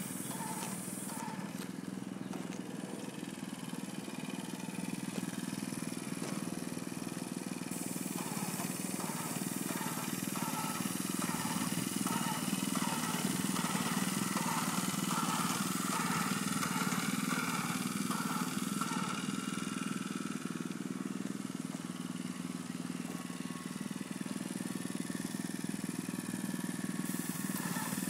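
Small gasoline engine of a walk-behind airless line-striping machine running steadily while it paints parking stripes, with a high hiss above it that comes and goes.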